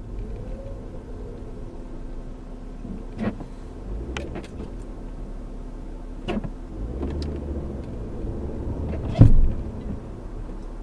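Low engine and road rumble inside a slow-moving car, picked up by its dashcam. A few sharp clicks and knocks sound at intervals, the loudest a thump about nine seconds in.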